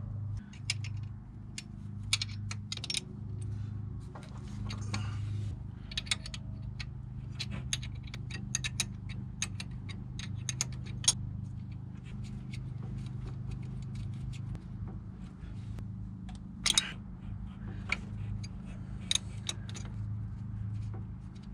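Hand tools working the bolts out of a Land Cruiser HJ61 water pump housing: irregular metallic clicks and clinks of wrench and bolts, over a steady low hum.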